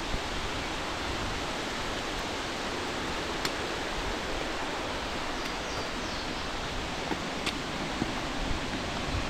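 Steady rush of river water flowing through a rocky gorge, with two faint clicks about three and a half and seven and a half seconds in.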